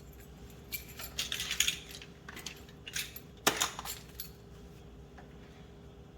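Small hard objects clinking and rattling as tools or parts are handled and packed away, with a louder sharp clack about three and a half seconds in. A faint steady hum runs underneath.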